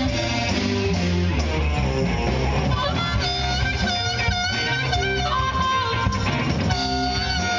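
Live rock band playing: electric guitar, bass and drums, with a lead line of held, bending notes coming in about three seconds in.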